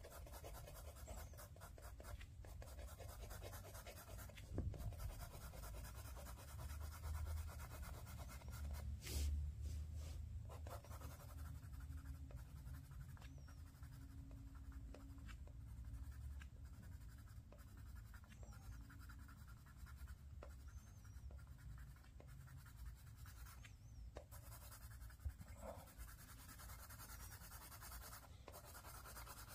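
Pencil scratching on sketchbook paper in quick, short shading strokes.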